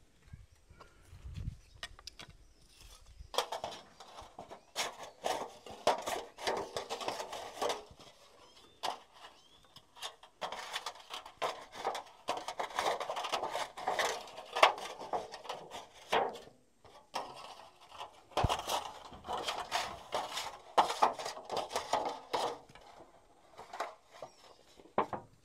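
Knife blade cutting and scoring a thin aluminium sheet, rapid scraping metal-on-metal strokes. They come in three spells with short pauses between, starting a few seconds in.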